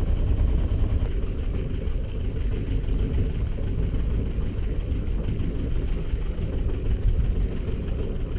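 Inboard diesel engine of an Endeavour 32 sailboat running steadily, its low, even drone and clatter heard from on deck.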